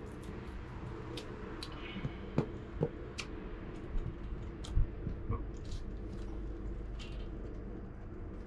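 Faint, scattered clicks and rustles of hands and a knife working at the base of a squirrel's tail, over a steady low background hum.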